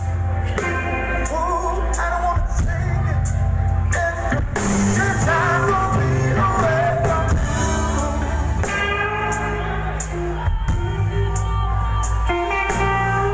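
Live band playing a song: electric guitar, keyboard and a steady drum beat, with singing over it.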